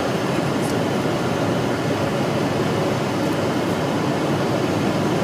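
Steady road and engine noise heard from inside a car cruising at highway speed.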